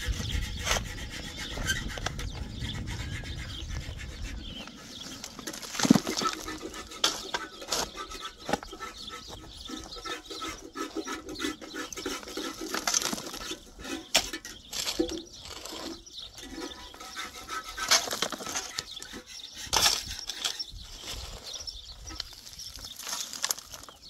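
Digging in stony ground with a pickaxe and a shovel: irregular strikes and scrapes of steel blades into earth and stones, with shovelled dirt and rocks tipped into a wheelbarrow. The sharpest strike comes about six seconds in, and there is a low rumble in the first few seconds.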